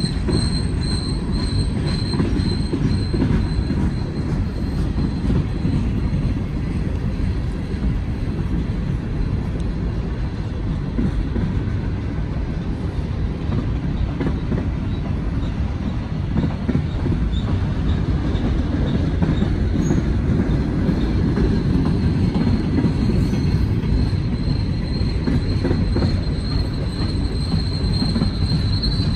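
Freight train cars rolling past, with a steady rumble of steel wheels on the rails. A thin, high-pitched wheel squeal sounds at the start and comes back near the end.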